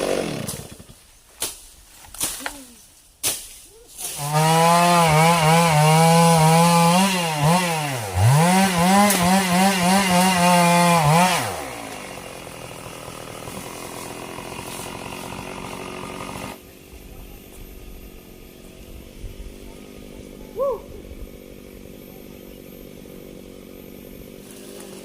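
A few sharp knocks, then a two-stroke Stihl chainsaw running at high revs for about seven seconds, cutting sengon timber. Its pitch wavers and dips once about halfway as the load changes, and the saw stops about eleven seconds in.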